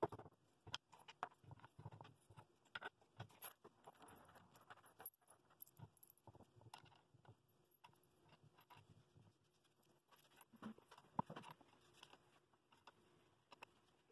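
Faint, scattered clicks and taps of a bowl glue press being assembled by hand: wooden spacer blocks and metal wing nuts going onto the threaded rods over a plywood plate, with a small cluster of louder knocks near the end.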